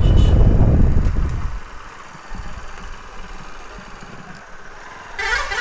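Motorcycle riding, with a heavy low rumble of engine and wind on the microphone that drops away about a second and a half in as the bike slows down, leaving a quiet low running sound. A short pitched sound comes about five seconds in.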